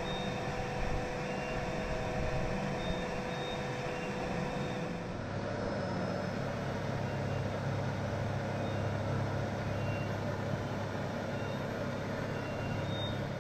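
Steady mechanical hum and hiss of a submersible's cabin machinery during descent, with faint short high beeps now and then. A higher steady tone stops about five seconds in, and the hum turns lower and stronger.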